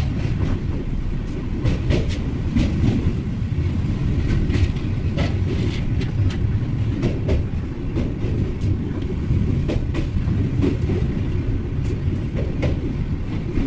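Passenger train running along the track: a steady low rumble with irregular clicks and rattles from the wheels over the rails.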